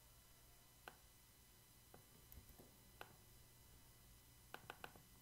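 Near silence with a few faint computer mouse and keyboard clicks while copying and pasting: one about a second in, another about three seconds in, and a quick run of three near the end.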